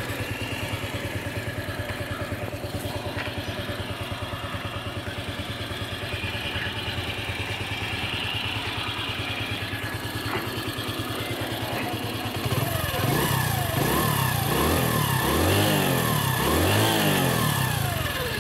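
Hero Splendor iSmart Plus motorcycle's single-cylinder four-stroke engine idling with an even beat. About two-thirds of the way through, the throttle is blipped several times in a row, the revs rising and falling, before it drops back to idle near the end.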